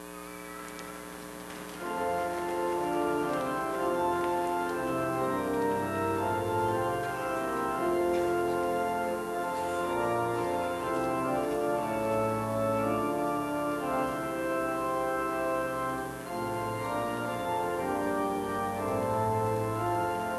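Church organ begins about two seconds in and plays slow, held chords.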